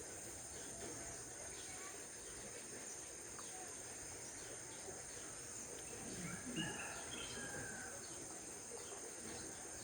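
Outdoor ambience of a steady high-pitched insect drone, with a few faint bird chirps about six to eight seconds in.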